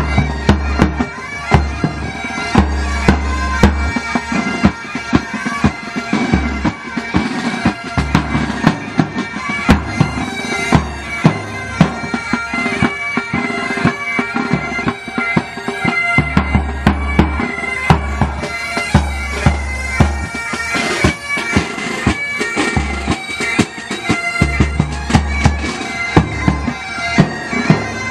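Military pipe band playing: bagpipes sounding a tune over their steady drones, with drums beating time in frequent sharp strokes and low thuds.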